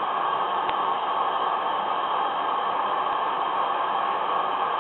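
Small hand-held gas torch burning with a steady hiss while it heats a lead-free body-solder rod and the sheet-metal panel.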